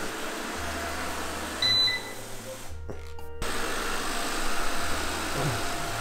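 Robot vacuum cleaner running with a steady hum of its motor and brushes, under background music with a stepping bass line. The vacuum noise drops out briefly about three seconds in.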